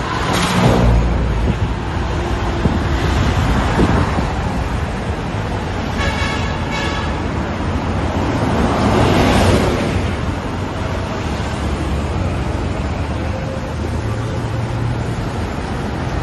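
Road traffic: a steady rumble of vehicles, with one passing close about half a second in and another about nine seconds in. A short high-pitched tone sounds about six seconds in.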